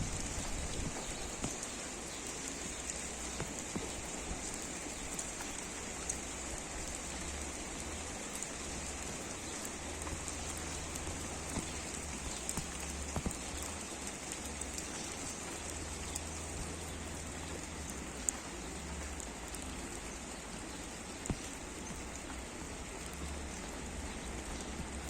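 Steady rain falling, with a few sharper drop taps standing out here and there.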